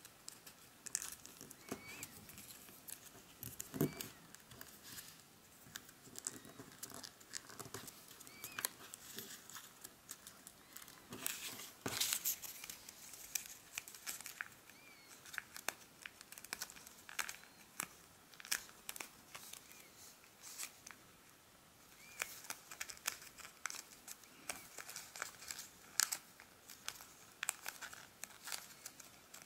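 A sheet of origami paper being folded and creased by hand: faint, irregular crinkling and rustling with short crisp clicks as the flaps are squashed and pressed flat.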